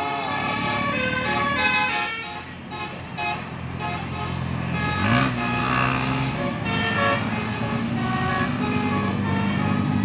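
A bus's Basuri telolet musical horn playing a quick tune of changing notes. About five seconds in, a passing car's engine comes in as a low steady drone with a short rise in pitch, while the horn tune carries on more faintly behind it.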